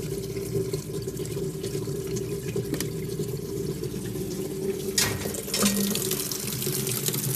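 Water running into a washing machine while it leaks straight out through the drain hose: a steady rush of water over a low hum, louder from about five seconds in. The leak comes from a drain valve stuck open whose gears no longer let it return and close.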